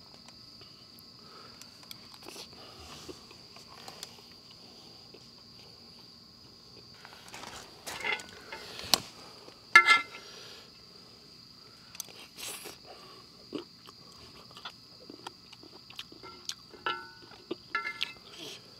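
A steady chorus of night insects, with intermittent clinks and scrapes of a metal spoon against a griddle pan as stir-fried food is stirred and scooped. The clinks come in clusters, loudest about halfway through and again near the end.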